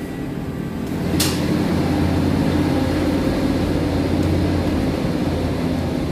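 Steady low machinery hum that grows louder about a second in as a door opens to the outside, with one sharp click near that moment.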